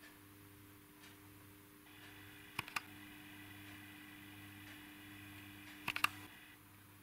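Quiet room tone with a faint steady hum, broken twice by a short cluster of sharp clicks, once about two and a half seconds in and again about six seconds in.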